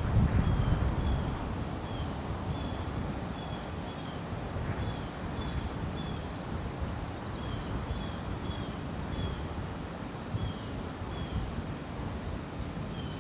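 Wind blowing over the microphone, gusting hard at first and easing to a steadier rush after about two seconds. Short high chirps repeat about once or twice a second throughout.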